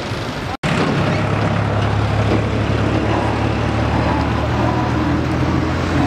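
A vehicle engine idling steadily over road traffic noise. Just over half a second in, the sound drops out for a split second at a cut, then the idling continues unchanged.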